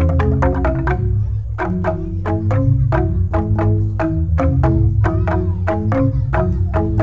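Jegog, the Balinese bamboo gamelan, playing an instrumental piece: fast interlocking mallet strikes on tuned bamboo tubes over a deep, continuous bass from the largest tubes. The upper parts briefly thin out about a second in, then the dense pattern resumes.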